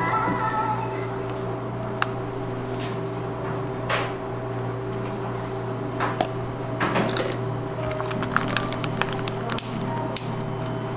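Plastic drink pouch crinkling and clicking as it is handled while being filled with draft beer and a straw is pushed in, with sharp clicks now and then and a quick run of them near the end. A steady low hum lies underneath.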